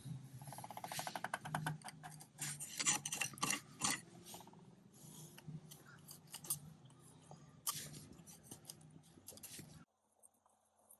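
A hand tool scraping and chipping old caulking out of the seams of a wooden boat deck, in rough, irregular strokes with a brief fast rattle near the start. It cuts off suddenly about a second before the end.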